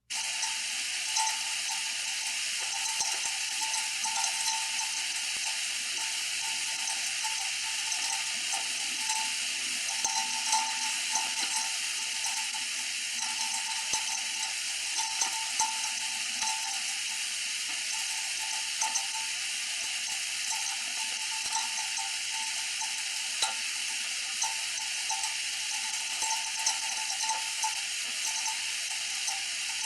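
Steam radiator hissing steadily, with a wavering whistle that comes and goes and scattered small clicks.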